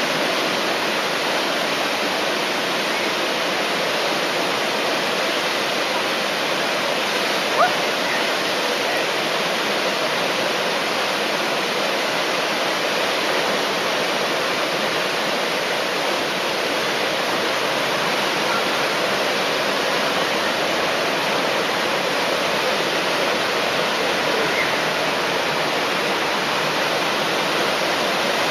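The Eisbach's standing river wave: fast whitewater rushing steadily over the weir. One brief sharp sound comes about seven and a half seconds in.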